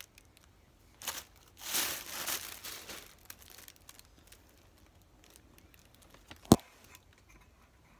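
Tissue paper crinkling and rustling, a short rustle about a second in and then a longer stretch of about a second and a half, as a bag is set down on it. A single sharp knock near the end.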